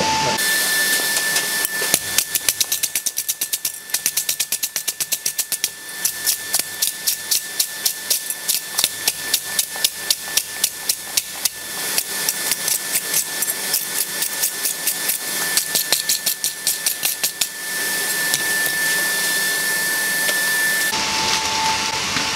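Hand hammer striking hot steel on the anvil while forging a toasting fork: a quick, even run of blows, about three to four a second, with short pauses, that stops a few seconds before the end. A steady high hum runs underneath.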